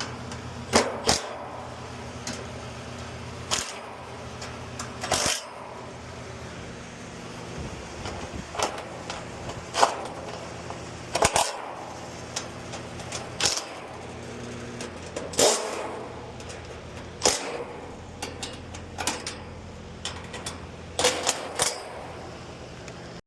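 Repeated sharp clanks, clicks and knocks of tools and equipment being handled and set down, over a steady low machine hum.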